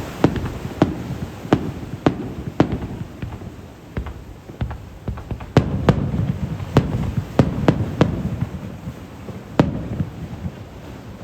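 Aerial fireworks shells bursting in quick, irregular succession: about fifteen sharp bangs, each trailing off in a low rumbling echo, with the bursts thinning out near the end.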